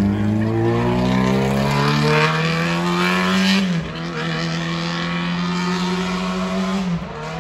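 A motor vehicle's engine accelerating hard through its gears. The pitch climbs steadily, drops at a gear change about four seconds in, then climbs again until a second shift near the end.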